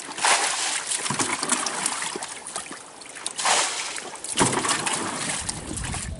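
Rainwater being bailed out of an inflatable dinghy with a plastic tub: water sloshing as it is scooped, then splashing as it is flung overboard, several times.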